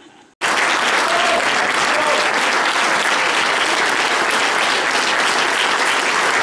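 Audience applauding: dense, steady clapping from a large crowd, starting abruptly about half a second in.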